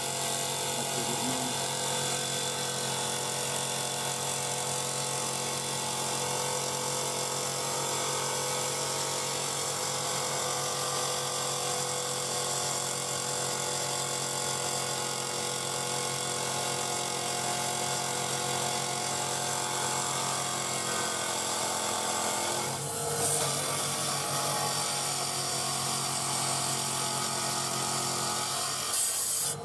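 Electric stone-cutting saw running steadily with a water-cooled blade, grinding through a stone sample pressed against it by hand. About three-quarters of the way through, the tone of the machine shifts.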